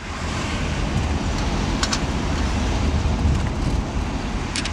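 Car cabin noise from a moving car: a steady low rumble of engine and road with a hiss of wind over it. A brief double click comes about two seconds in.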